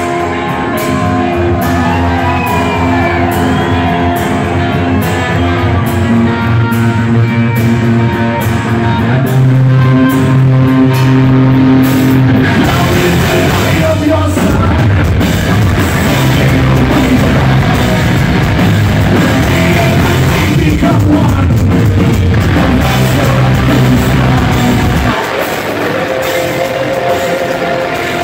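Live rock band playing loud: distorted electric guitar over bass and drums. About 25 seconds in the low end drops away and the music gets quieter.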